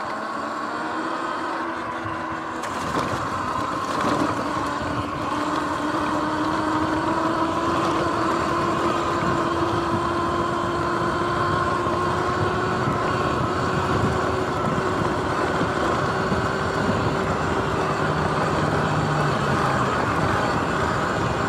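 Sur-Ron X electric dirt bike's motor whining as it rides, its pitch climbing slowly as speed builds, over the steady rushing noise of the tyres rolling across grass.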